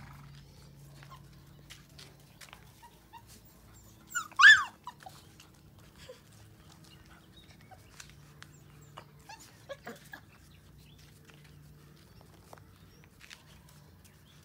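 A 5-week-old Labrador Retriever puppy gives one short, high yelp in two quick parts about four seconds in. Around it are a few faint light clicks and a faint low hum.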